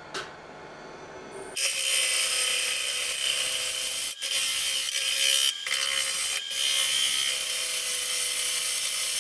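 Bowl gouge cutting the spinning rim of a very hard pecan bowl on a wood lathe: a loud, hissing scrape of shavings coming off that starts about one and a half seconds in and runs on with a few brief breaks.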